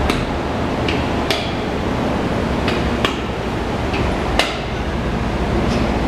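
BMW K1200LT's inline-four engine idling steadily, with about seven sharp clicks at irregular intervals over it.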